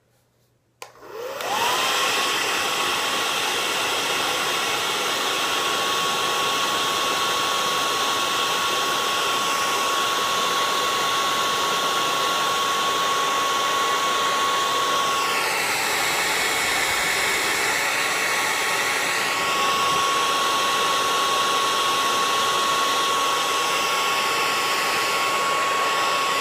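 Hand-held hair dryer running on a fidget spinner: it switches on about a second in with a whine rising as the motor spins up, then blows steadily with a rushing air noise and a steady whine. For a few seconds past the middle the air noise changes in pitch and the whine drops out, then returns, and the whine falls away at the very end as it is switched off.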